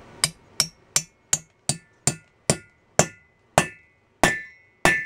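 A hammer tapping on metal, about eleven sharp blows that slow from about three a second to under two, with a ringing note building on the later strikes. It is the work of knocking a broken valve stem out of the valve guide of an air-cooled VW Beetle cylinder head.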